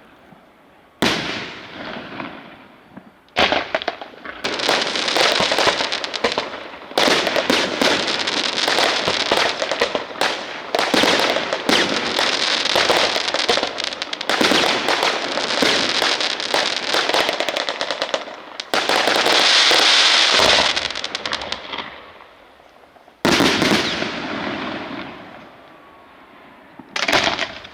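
Fireworks going off: a series of sharp bangs, with long spells of dense, rapid crackling between them, and two more loud bangs near the end.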